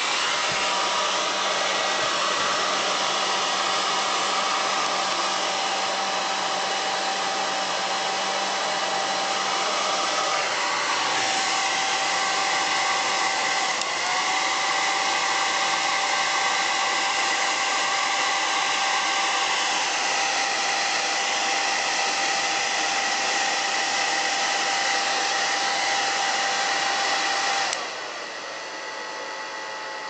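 Philips HP8116 hair dryer running steadily, with the whine of its small fan motor over the rush of air, its heater on and drawing about 770 W. The whine shifts slightly in pitch twice, and near the end the sound drops sharply to a much lower level.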